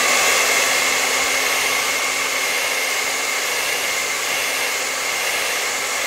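Handheld hair dryer running steadily, blowing air onto carpet: an even rushing hiss with a steady motor whine.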